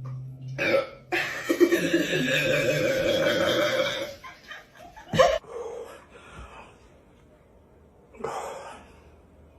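A long, loud burp lasting about three seconds, then a short sharp burp-like sound about five seconds in and a briefer, fainter one near the end.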